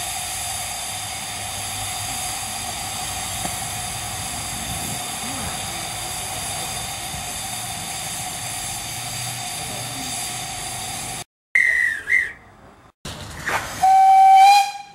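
Steam hissing steadily from the fittings on top of a miniature-railway steam locomotive's boiler, a held tone running through the hiss, until it cuts off abruptly. Near the end come two short steam-whistle blasts, first a high wavering one, then a lower, stronger one.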